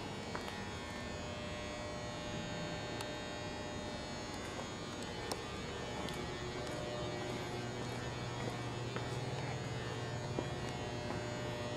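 A steady electrical hum and buzz, with a lower hum coming up about halfway through and a few faint clicks.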